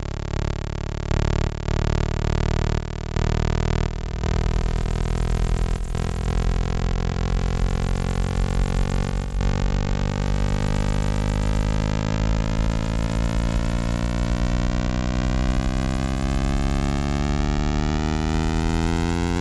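Electronic soundtrack drone: a dense, buzzing hum whose tone sweeps slowly and steadily upward, like a long flanging whoosh. It has a few short breaks in the first four seconds.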